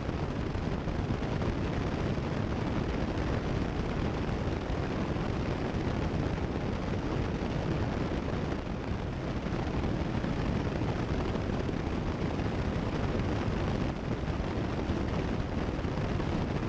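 Steady drone of a Cessna 172 Skyhawk's engine and airflow in cruise, heard muffled through the cockpit headset intercom.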